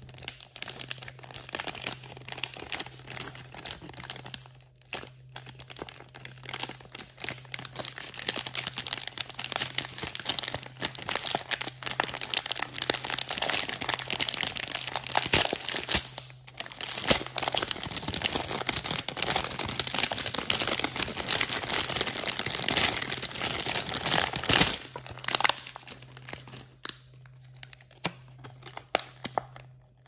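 Clear plastic toy packaging crinkling and tearing as it is handled and pulled open. The sound is loudest through the middle, then thins out near the end to a few light clicks and taps.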